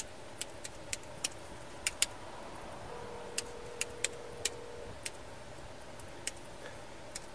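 Scattered sharp clicks, about a dozen with uneven gaps, over a steady background hum inside a patrol car: keys being tapped on the car's mounted laptop keyboard.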